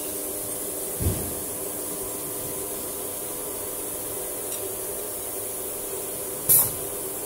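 Steady hum of a CNC router and its machinery, with a few steady tones. There is a dull thump about a second in and a short, sharp burst of noise near the end.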